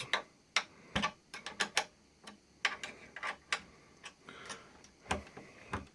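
Irregular light clicks and taps of small metal parts being handled, from working the adjustment hardware of a homemade table saw's sliding table.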